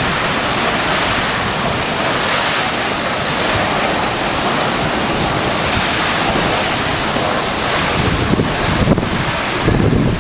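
Very strong storm wind blowing with a steady, loud rushing roar and buffeting the microphone, with a couple of heavier low gusts near the end.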